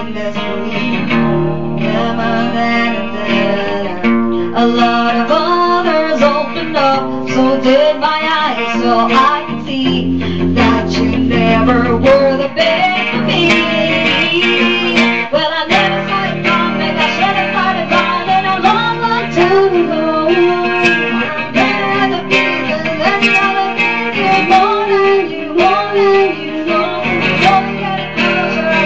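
Acoustic guitar strummed as accompaniment while a woman sings a slow pop song.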